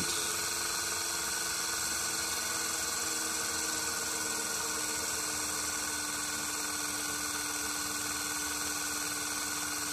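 DC shunt-wound motor running steadily with a hum and a hiss. About three seconds in its hum drops slightly in pitch as the speed controller slows it from about 1400 to 1200 RPM.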